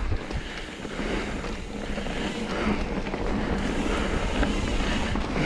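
Mountain bike rolling downhill on a dirt singletrack: a steady rush of tyre and trail noise with a low rumble, wind buffeting the microphone, and a couple of low thumps from bumps right at the start.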